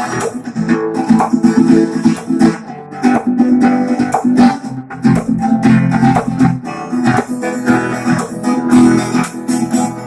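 Steel-string acoustic guitar strummed in a steady rhythm, one chord after another.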